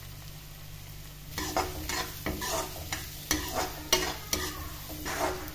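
Metal spatula stirring and scraping chopped onions, chillies and grated ginger frying in oil in a metal kadhai, with a steady sizzle. After about a second and a half of sizzling alone, a run of quick scraping strokes of the spatula against the pan begins.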